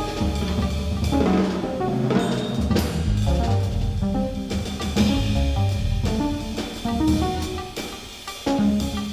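Improvised jazz from a live quartet of piano, saxophone, drum kit and electronics: busy drumming over shifting low bass notes and pitched tones. The playing thins out briefly near the end, then comes back in loudly.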